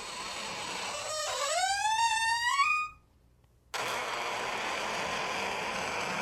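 Old wooden door's hinges creaking in a long, high squeal whose pitch dips and then rises, cut off abruptly about three seconds in. After a short silence, a steady rasping creak begins for the next door sound.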